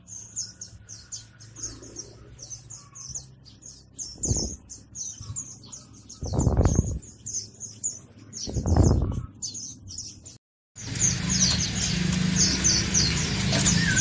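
Many short, high-pitched chirps from a cage of small sunbirds sold as 'kolibri ninja', twittering busily. Three louder low whooshes, about two seconds apart, cut through the middle. The sound drops out for an instant about ten seconds in, and then chirping carries on over a low hum.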